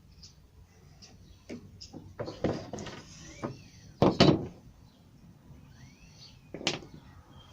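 Plywood panels being handled: short scrapes and knocks of wood against wood, the loudest about four seconds in, with faint bird chirps behind.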